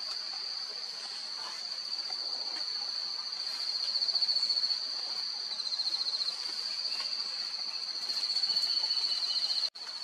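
Insects trilling steadily at a high pitch, a continuous fine-pulsed ringing, with a second, lower trill joining for the last few seconds. The sound drops out for an instant just before the end.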